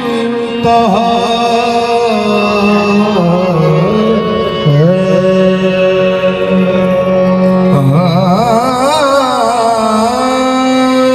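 Qawwali: a singer holding long notes and turning them with wavering ornaments, over steady sustained accompaniment.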